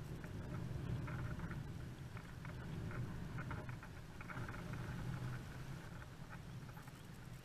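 Wind buffeting the microphone as a steady low rumble, with a few faint short clicks scattered through it.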